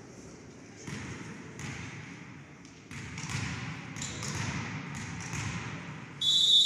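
Echoing sports-hall noise with a few dull thuds, then, about six seconds in, a referee's whistle blows one loud, steady note: the signal for the server to serve.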